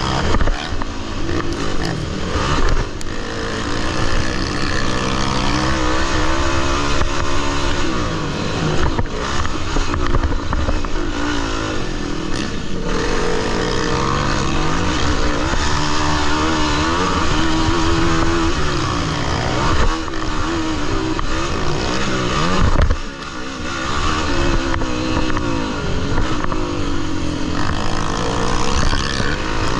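Motocross bike engines revving, their pitch rising and falling again and again with throttle and gear changes, with more than one engine heard at once at times.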